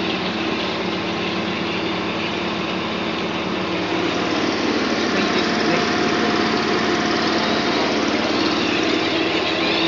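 Steady engine drone of the air compressor and cable-blowing machine running, over a broad hiss of compressed air. A faint steady whine joins in about four seconds in.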